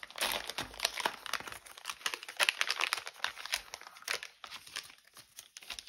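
Paper packaging crinkling and rustling as a small printed paper bag is handled and opened, a dense run of irregular crackles that thins out after about four seconds.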